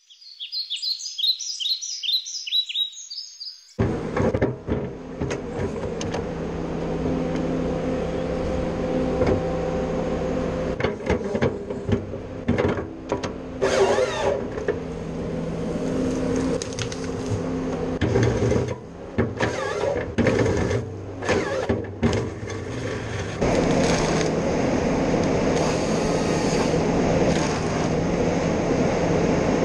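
A short high-pitched intro sound, then a Ponsse forestry harvester's diesel engine running steadily while its hydraulic crane and harvester head work, with clanks and knocks over the drone. About 23 seconds in, the machine gets louder and rougher.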